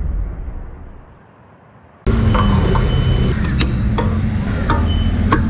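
A deep boom that dies away over about a second and a half, then an abrupt cut to a steady low rumble of a vehicle on the move, with scattered sharp clicks.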